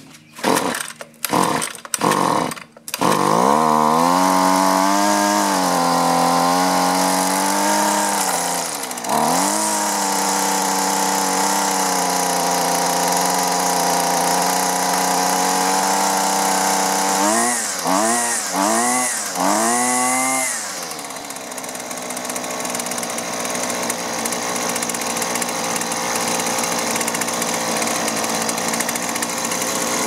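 Husqvarna 128LD string trimmer's two-stroke engine pull-started with the choke on: a few quick pulls on the starter cord, then it catches about three seconds in and runs fast, dips briefly and picks up again, is revved three times, and settles to a lower idle for the rest. It is running again on new fuel lines and a new fuel filter, before any carburetor adjustment.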